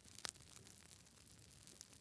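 Campfire crackling: one sharp pop about a quarter second in and a few fainter crackles over a faint hiss.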